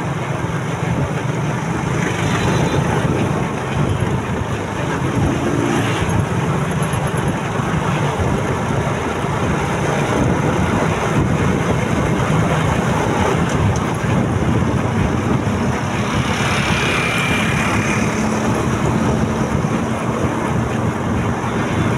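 Motorcycle on the move: its engine running steadily under constant wind and road noise.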